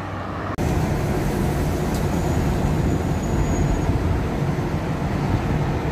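Steady low engine and road rumble heard inside a car cruising at about 60 km/h. It starts abruptly about half a second in, after a brief quieter stretch of open-air road traffic.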